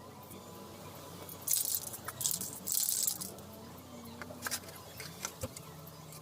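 Aerosol spray-paint can being shaken, its mixing ball rattling in two short spells about a second and a half and three seconds in, with scattered clicks.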